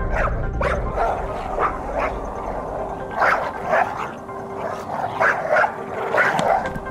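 A dog barking repeatedly, short barks in irregular pairs and groups.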